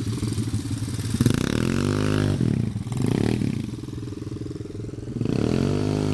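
ATV engine revving up and down: its pitch rises and falls twice, about a second in and again near the end, and it runs steadier in between.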